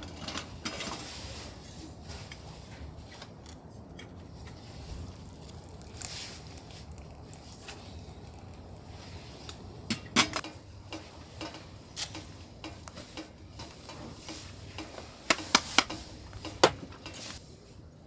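Metal clinks of a stainless steel kettle's wire handle and lid being handled on a camp stove, with sharp clinks about ten seconds in and a quick run of three near the end, over a steady faint hiss.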